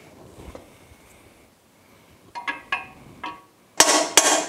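Hammer blows on an aluminum bearing driver, driving a tapered bearing's outer race into a Yamaha F225 outboard's lower-unit gearcase. Three lighter taps come about two and a half seconds in, then two louder, ringing metallic strikes near the end, the ring that signals the race should be bottomed in its bore.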